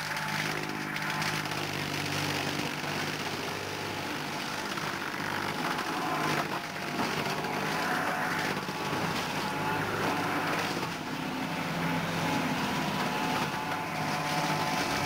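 Tractor engine running steadily while its rear-mounted mower chops through dense brush and undergrowth.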